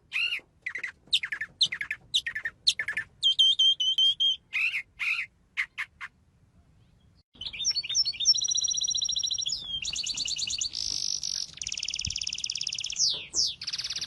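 Bird calls: a run of short, sharp chirps sweeping down in pitch for about six seconds, then, after a short pause, a different bird's fast, high-pitched trills and rattles.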